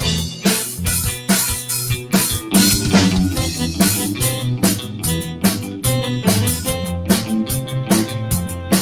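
Live band playing an instrumental passage with no vocals: guitar over a steady drum-kit beat.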